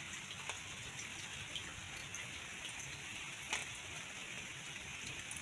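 Light rain falling on a pond's surface: a faint steady patter with scattered single drop ticks, one louder drop about three and a half seconds in.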